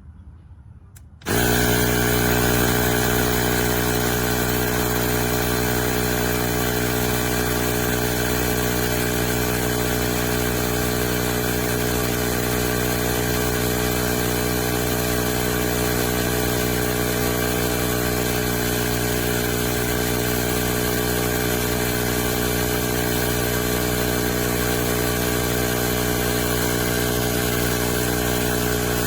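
Cordless tire inflator's compressor switching on about a second in and running steadily with an even motor-and-pump drone while pumping up a tire.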